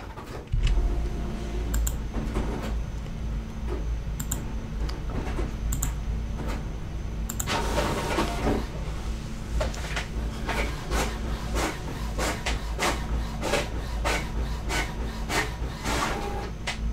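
HP OfficeJet Pro 8600 inkjet printer printing a page: its motor starts with a low hum about half a second in, and from around halfway it keeps up a run of mechanical clicks and rattles as the paper feeds through.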